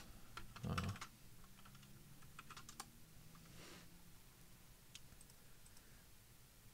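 Computer keyboard being typed on, with scattered single keystrokes, faint. A short low sound about a second in is the loudest moment.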